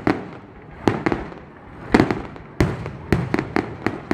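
Fireworks going off: a string of sharp bangs at uneven intervals, each trailing off into an echo, coming quicker in the second half.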